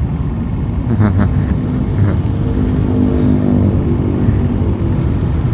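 Motorbike on the move: steady engine and wind rumble. A fainter steady drone swells and fades between about two and four seconds in.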